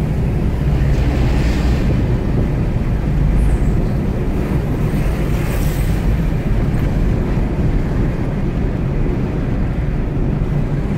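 Steady road and engine noise heard inside a moving car's cabin, mostly a low rumble.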